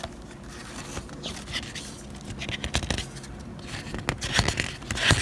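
Paper calendar being handled, its pages rustling and scraping as one is turned, with a sharper knock near the end.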